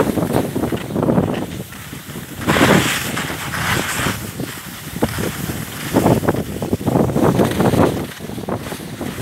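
Wind buffeting a handheld camera's microphone while skiing downhill, in loud, irregular gusts that surge and fade every second or two.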